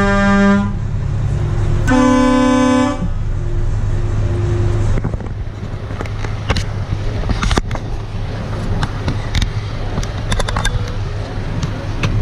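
Truck horns sounding: one blast cuts off under a second in, then a lower blast from about two to three seconds, followed by a few faint short toots. A steady low rumble then carries on, with scattered clicks and knocks.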